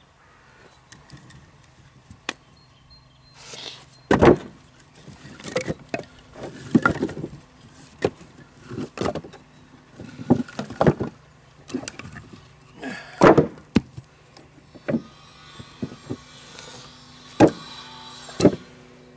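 Short lengths of freshly cut willow log being handled and stacked, making an irregular series of hollow wooden knocks and thuds as log strikes log. The loudest knocks come about four, thirteen, seventeen and eighteen seconds in.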